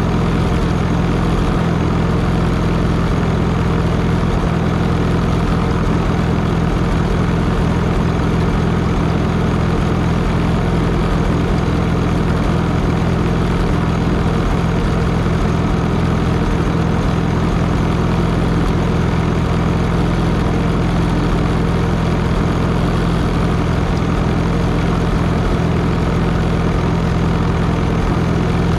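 Allis-Chalmers farm tractor's engine running at a steady, unchanging speed. The owner says this engine is not running the greatest.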